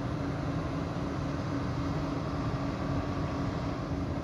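Steady low rumble of heavy road vehicles, with a constant engine hum throughout.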